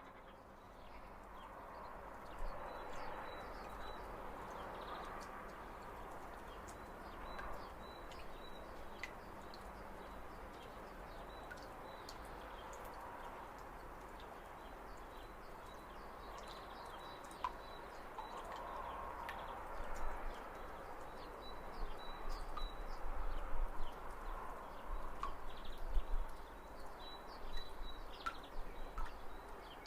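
Outdoor spring ambience: birds chirping in short high repeated notes over a steady background hiss, with low bumps coming and going in the second half.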